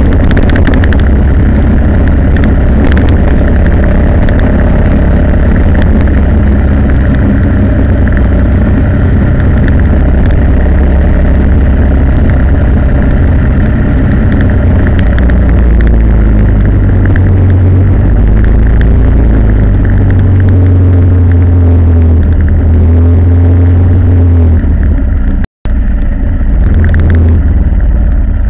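A road vehicle's engine and road noise during a ride, a continuous deep rumble with the engine pitch shifting now and then. The sound cuts out for an instant near the end.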